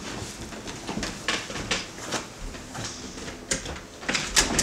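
Irregular clicks, knocks and rustling in a small room, from someone moving about, with the loudest cluster near the end.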